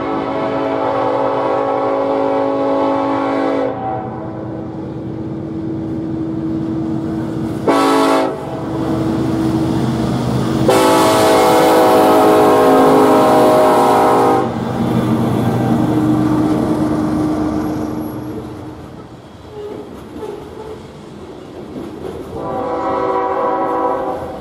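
BNSF diesel freight locomotives sounding their horn in four blasts: a long one, a short one about eight seconds in, another long one from about eleven to fourteen seconds, and a shorter one near the end. Between the blasts the locomotives' engines rumble past, followed by loaded coal hopper cars clattering over the rails.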